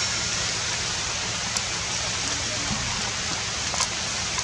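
Steady rain falling, a continuous even hiss, with a couple of faint ticks.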